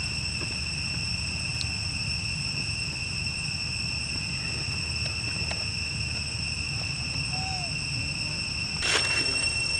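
Forest ambience: a steady high-pitched insect drone over a low rumble, with one short gliding call about seven and a half seconds in and a brief noisy burst about nine seconds in.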